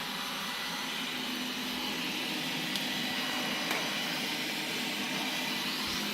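Qihoo 360 S6 robot vacuum running with a steady whir, with a couple of faint ticks partway through.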